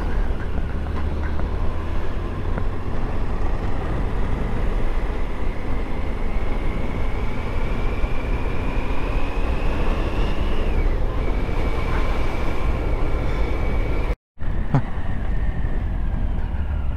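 Motorcycle being ridden on the road: the engine runs under a steady rumble of wind and road noise. A whine rises in pitch for several seconds as the bike speeds up, drops off, then holds steady. The sound cuts out briefly near the end.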